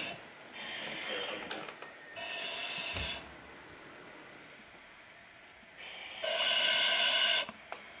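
Firefighter breathing through a self-contained breathing apparatus facepiece and regulator: hissing breaths about a second long, two close together near the start and a louder one about six seconds in.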